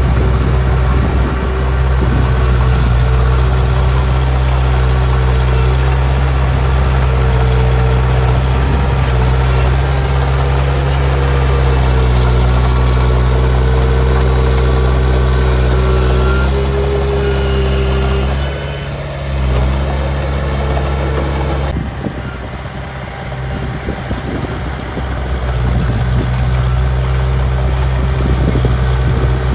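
Heavy diesel engine of earthmoving machinery running steadily under load, a deep even drone. It eases briefly about two-thirds of the way through, then the sound changes abruptly and comes back up near the end.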